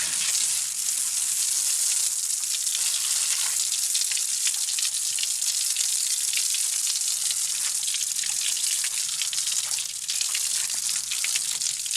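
Shower running: a steady spray of water hissing onto a surface.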